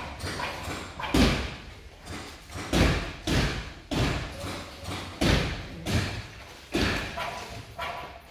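Footsteps walking over burnt debris on a concrete floor: a thud and a crunch of loose rubble with each step, a little more than one step a second.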